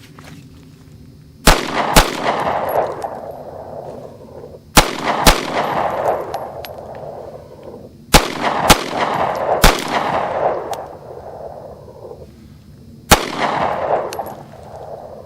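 Kel-Tec P11 9mm pistol firing eight shots, mostly in quick pairs: two, two, three, then a single shot. Each group is followed by a long fading echo.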